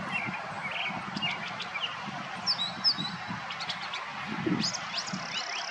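Brown thrasher singing: a run of short, varied phrases of chirps and whistles with brief gaps between them, one phrase given twice in a row about midway.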